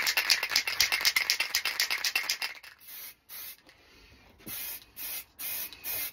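Aerosol can of grey primer: first shaken hard, its mixing ball rattling rapidly, then sprayed in a run of short hissing bursts from about three seconds in.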